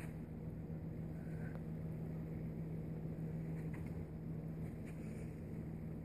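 A steady low hum, with a few faint soft taps and rustles of the cat and ferret tussling on the floor.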